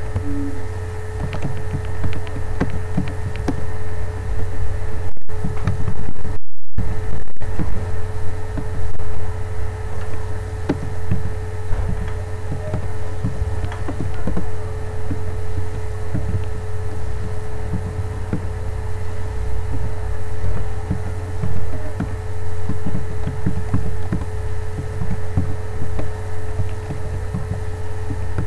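Steady low hum with a constant higher whine over it, and faint keyboard clicks as text is typed. The sound cuts out for a moment about six and a half seconds in.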